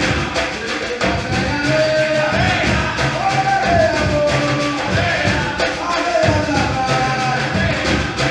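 Brazilian-style percussion group playing a steady groove, with deep pitched bass drums repeating under the beat and a voice singing a melody over it.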